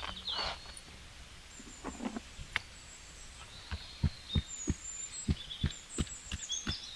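Soft regular thumps, about three a second, starting about halfway through, as ginger-garlic is worked into minced chicken. Birds chirp in the background.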